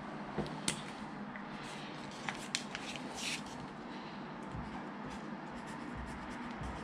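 Felt-tip marker writing on a paper sticker held flat against a panel: short scratchy strokes and a few sharp taps, over a low steady hum.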